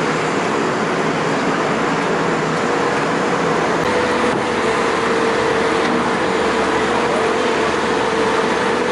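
Diesel engines of a Vögele asphalt paver and a Hamm HD 75 tandem road roller running steadily while laying and compacting asphalt. A steady droning tone runs through the noise.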